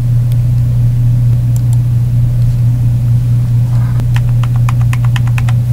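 LegalBoard USB keyboard keys tapped in a quick run, about seven clicks a second, starting about four seconds in, as the newly installed keyboard is tried out. A steady low hum runs underneath throughout.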